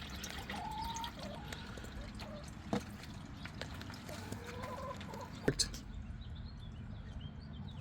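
Chickens clucking in short, wavering calls, with two sharp knocks about three seconds apart.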